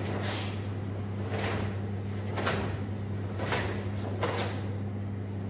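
About five sharp swishing snaps from karate techniques done in unison, the cotton uniforms snapping with each strike and block, over a steady low hum.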